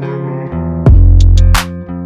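Music with plucked guitar-like notes. A heavy bass and drum beat comes in just under a second in, with sharp percussion hits on top.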